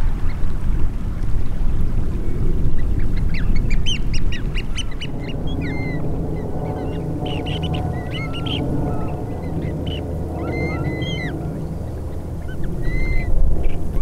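Waterbirds calling: a quick run of short calls about four seconds in, then scattered short, hooked calls, over a steady low rumble of wind and water.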